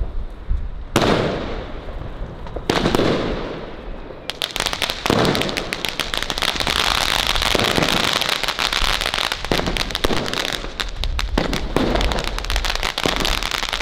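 Funke 100-shot firework cake firing shot after shot. A few separate bangs come in the first seconds, then from about four seconds in a dense, rapid crackling of many small pops.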